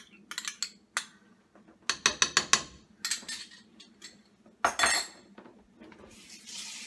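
Wooden spoon stirring thick spinach gravy in a nonstick pan, knocking and scraping against the pan in quick clusters of clicks over the first three seconds. A louder scrape follows about five seconds in.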